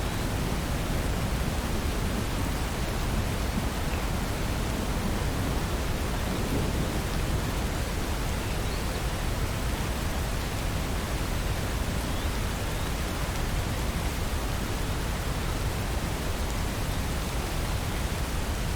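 Steady rain falling, an even hiss with no distinct drops or thunderclaps standing out.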